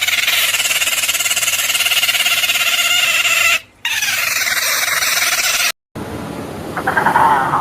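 An animal call from a sound-effect track: two long, buzzy calls held at a steady pitch, the first about three and a half seconds long and the second about two seconds. A different call, wavering in pitch, starts near the end.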